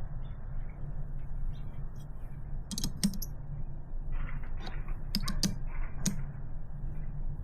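Small scattered clicks and taps of metal hardware being handled, a threaded rod and nut being worked into a plastic hinge, coming in a few clusters with a little scraping between them, over a steady low hum.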